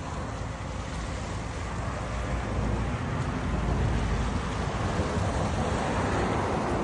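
Steady rushing of wind buffeting the microphone, over water washing against the seawall below; it grows a little louder about two seconds in.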